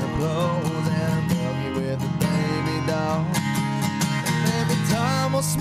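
Country-style song accompaniment: strummed acoustic guitar under a sliding melody line, an instrumental passage between sung lines.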